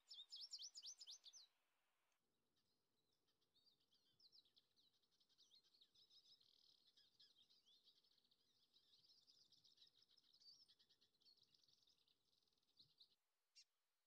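Faint songbird twittering: a quick series of high chirps at the start, then a long run of fast, high twittering that stops near the end.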